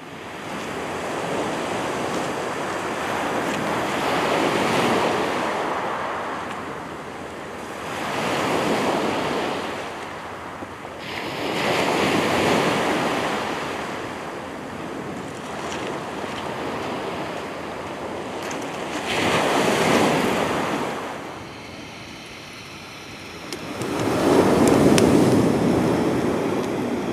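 Sea waves breaking and washing up a shingle beach in slow surges a few seconds apart. There are about five swells, and the loudest comes near the end.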